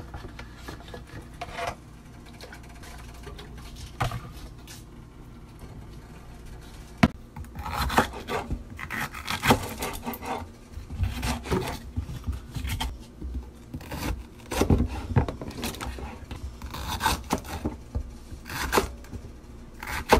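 A spoon scraping and knocking against kitchenware while small potatoes are spooned into a pot of hot water. The scraping strokes and sharp knocks are sparse at first and come thick and fast in the second half.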